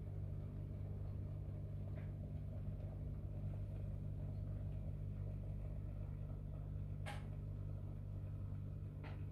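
Steady low hum, with a few faint light clicks about two, seven and nine seconds in.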